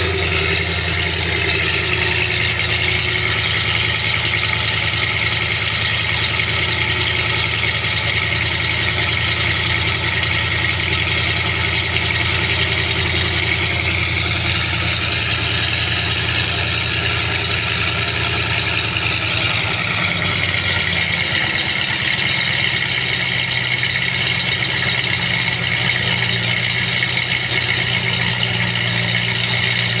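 Ford 5.0 HO V8 idling steadily just after a cold start, breathing through BBK shorty headers, a BBK off-road H-pipe without catalytic converters, and a Pypes Violator stainless catback. The tone of the idle shifts slightly about two-thirds of the way through.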